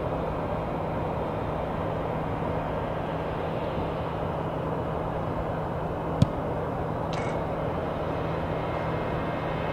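Steady outdoor background noise with a faint low hum, broken by a single sharp click about six seconds in.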